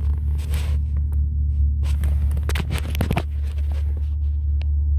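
Steady low rumble inside a car's cabin, with rustling, scraping and a few clicks as a hand reaches down beside the seat and presses the heated-seat switch.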